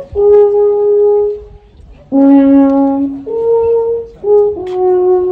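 Alphorn playing a slow phrase of long held notes: it ends one long note, pauses, then starts again from a low note, steps up, comes down a little and settles on a long middle note.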